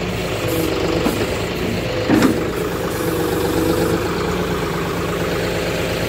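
John Deere 5310 tractor's diesel engine running steadily, driving the Bull backhoe's hydraulics as the boom is raised. There is a brief louder sound about two seconds in.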